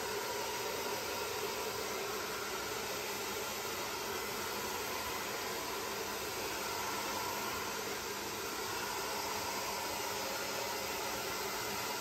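Somoya two-speed, three-heat handheld hair dryer running steadily, a constant rush of blown air with a faint motor whine underneath, as it dries wet hair.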